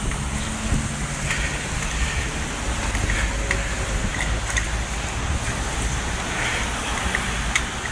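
Steady moving-along noise: wind buffeting the microphone over the hiss of tyres on a wet cycle path, with a few faint clicks.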